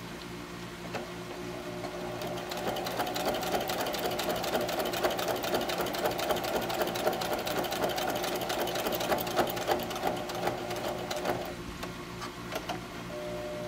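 Electric sewing machine running at speed, its motor humming under a rapid stream of needle clicks, likely stitching the vinyl of the apron. It builds up about a second in, runs steadily, eases off for a moment near the end and then starts again.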